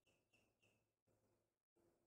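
Near silence, with three faint short bird chirps in quick succession in the first second.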